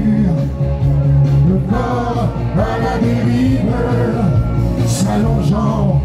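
Live music: a man sings into a hand-held microphone over steady instrumental accompaniment, his voice gliding between notes.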